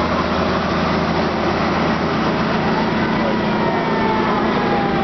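Engine of a WWII-era army six-wheel cargo truck running steadily at low speed as it drives past, with a thin tone sliding slowly down in pitch in the second half.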